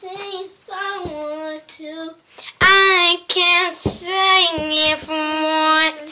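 A child singing: short sung phrases, then louder, longer held notes from about two and a half seconds in.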